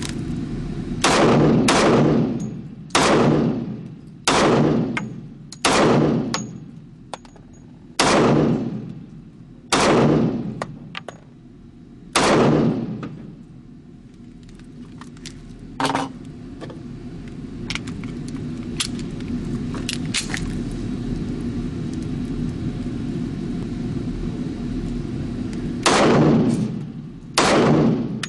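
Springfield XD-S .45 ACP pistol firing SBR Laser Match tracer rounds: eight single shots one to two and a half seconds apart, each with a trailing echo. A pause of about thirteen seconds follows, broken only by a faint knock, then two more shots near the end.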